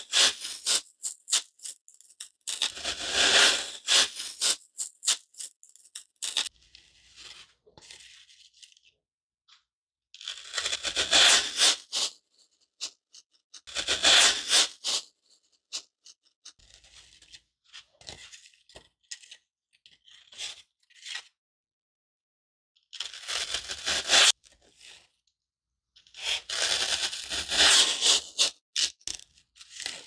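Garden foam block being cut into pieces, a staticky rasp: about five loud cutting strokes of one to three seconds each, with faint crumbling and crackling between them.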